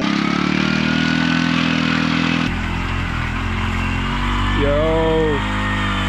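Auto-rickshaw (tuk-tuk) engine running steadily as it drives across a muddy track. About two and a half seconds in the sound changes abruptly, and a voice calls out briefly near the end.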